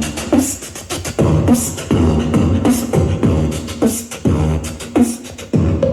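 Old-school hip-hop playing loud through a W-King Bluetooth speaker at 80% volume: a beatbox-style rhythm of heavy beats about twice a second with short vocal sounds between, and no rapping.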